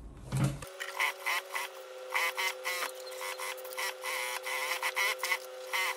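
Straight-stitch sewing machine stitching along a fabric edge: a steady motor whine with rapid, even needle clicking.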